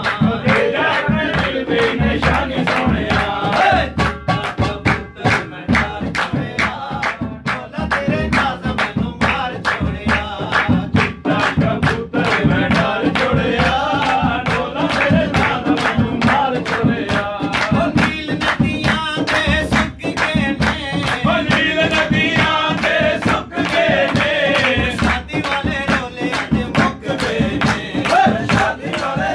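Male voice singing a Seraiki folk song over a steady hand-played percussion beat.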